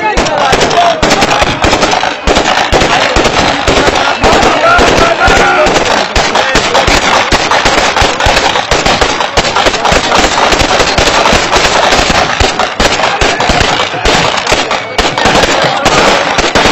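Heavy, continuous volley of rifle fire from many guns shooting into the air at once, shots overlapping so densely they form an unbroken crackle, with men's voices underneath.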